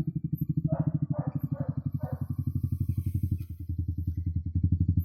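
Yamaha R15 V3's single-cylinder engine running at low revs with a fast, even pulse. It eases off briefly about three and a half seconds in, then builds again. Four short, higher-pitched sounds sit over it between about one and two seconds in.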